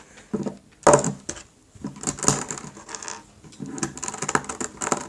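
Plastic Rubik's cube pieces clicking and clattering as they are handled, pried and snapped. Irregular sharp clicks, the loudest about a second in.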